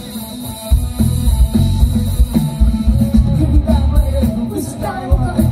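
Live band playing through a PA system: a drum kit and bass keeping a steady beat, with a singer's voice coming in about halfway through.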